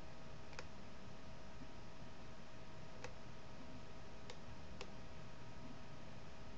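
Computer mouse clicking four times, short sharp clicks spread unevenly over the seconds, over a steady faint hiss and electrical hum.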